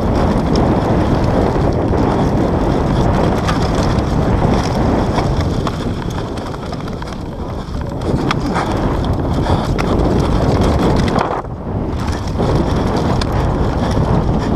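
Wind rushing over a helmet-mounted action camera's microphone while a downhill mountain bike runs fast over dirt and grass, the tyres rumbling and the bike rattling and knocking in short clicks. Briefly quieter about eleven seconds in.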